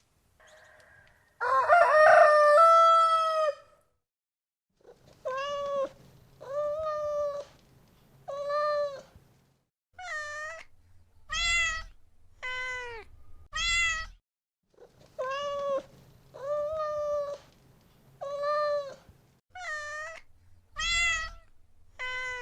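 A domestic cat meowing over and over, about a dozen similar meows roughly a second apart, after a louder, longer call near the start.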